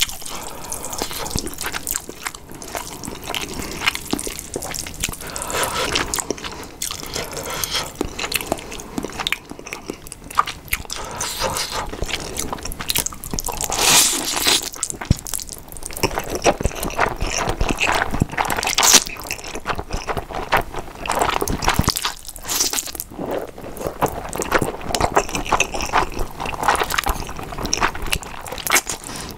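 Close-miked ASMR eating sounds: slurping and chewing mouthfuls of thick, sauce-coated Samyang nuclear fire stir-fried instant noodles, with wet mouth noises that swell louder about halfway through.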